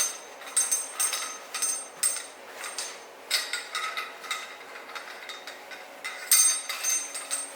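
Metal exhaust parts being handled and wiped down: a string of irregular light metallic clinks and taps, some with a short ring, over soft rubbing.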